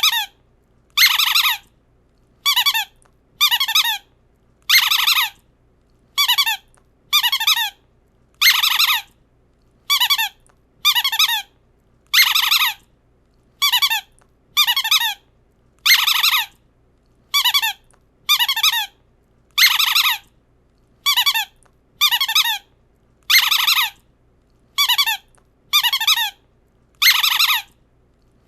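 A high, shrill, warbling squeak played over and over, each squeak lasting under a second, with short gaps of silence between them, slightly more often than once a second. It is a sound effect meant to bother dogs.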